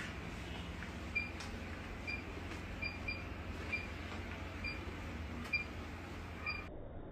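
Bedside patient monitor giving short high beeps about once a second, somewhat unevenly spaced, over a steady low hum.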